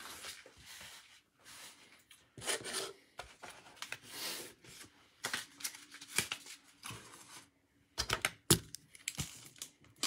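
A cardboard case being opened by hand: irregular tearing and rasping of packing tape and cardboard, with a few sharp clicks and knocks about eight seconds in.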